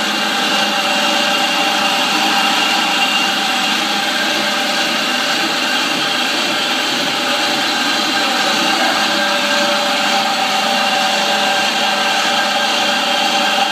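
ASL T8-650 stone floor grinding and polishing machine running steadily, its electric motor humming with a few held tones as the head spins over a wet, slurry-covered stone floor.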